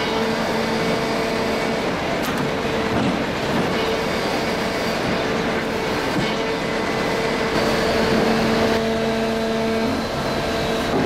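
Manta 54 non-ferrous scrap baler running: a steady machine noise with a constant two-note hydraulic hum.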